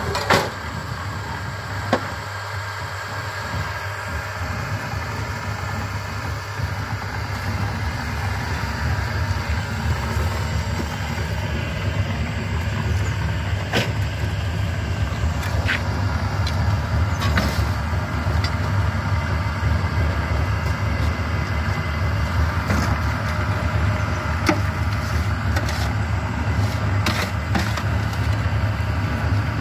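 Cement-brick-making machinery, a concrete mixer and a motorised block-making machine, running with a steady low hum that grows a little louder partway through. Several sharp knocks sound over it, the first just after the start.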